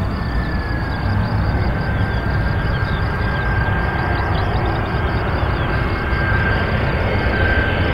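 Airbus A320-family twin-engine jet airliner on final approach with landing gear down: a steady jet rumble with a high engine whine that dips slightly in pitch early on and then holds steady.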